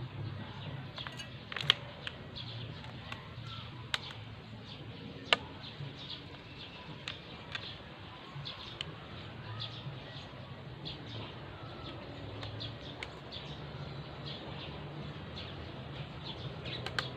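Scattered sharp clicks and taps of a motorcycle throttle cable and its handlebar fittings being handled and fitted, a few of them louder. Faint bird chirps and a low steady hum run underneath.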